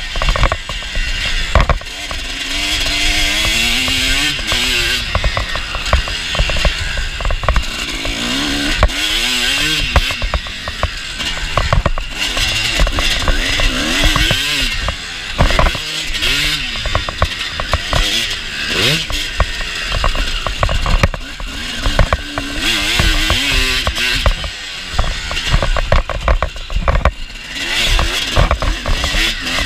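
Kawasaki KX250 motocross bike's engine revving up and falling back again and again as it is ridden hard around a dirt track, heard from an on-board camera, with frequent sharp knocks.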